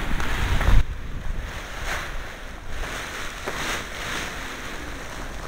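Wind buffeting the microphone: a heavy low rumble for the first second, then a steady rushing that swells and fades.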